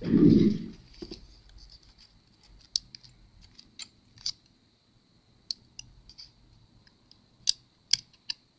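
Metal tweezers and fingers working a small laptop power-button board into its plastic chassis: a scattering of sharp, separate little clicks and scrapes, each one on its own. A short, dull, low handling bump at the very start is the loudest thing.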